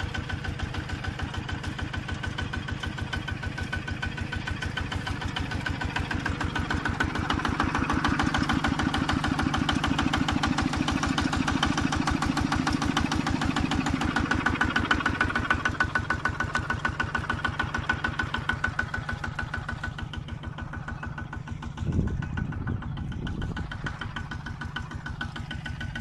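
Engine of a two-wheel walk-behind tractor running with a fast, even chug, growing louder through the middle and easing back again. A short thump comes near the end.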